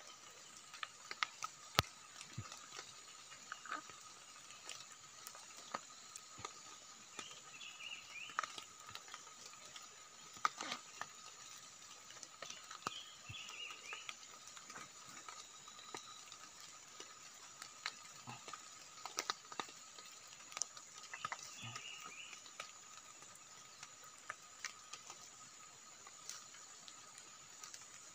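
Faint, scattered scrapes and taps of a small knife digging into soil, over a steady high-pitched drone of forest insects, with a few short bird chirps every several seconds.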